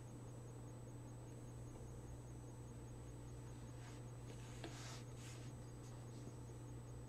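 Quiet room tone under a steady low electrical hum, with a few brief faint handling noises about four to five and a half seconds in.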